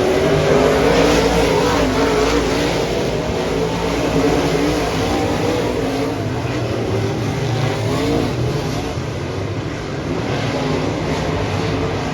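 Dirt-track modified race cars' engines running at racing speed, their pitch rising and falling continuously as they lap the track.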